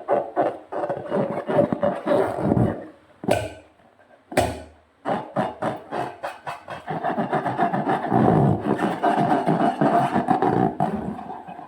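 Rubber balloon letting air out through its stretched neck: a raspy, sputtering buzz in long stretches, broken by a pause about three seconds in that holds two sharp snaps.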